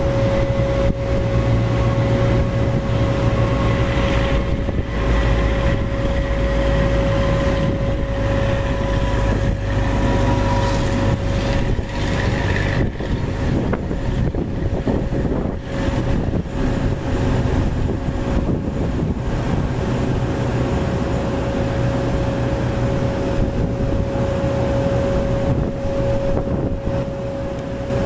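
Airbus A330's twin turbofan engines running at low taxi power with a steady whine over a low rumble, as the airliner turns to line up on the runway. Wind noise on the microphone.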